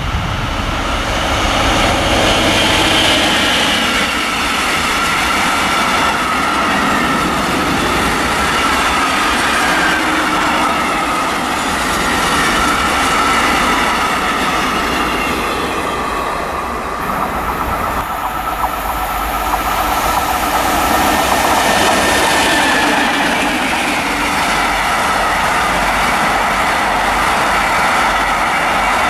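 Intercités passenger train of coaches passing close by at speed: a steady rolling noise of wheels on rails, with some clickety-clack from the rail joints.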